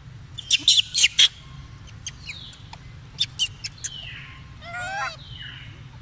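Animal calls: two quick runs of about four sharp chirps each, then a short wavering call near the end.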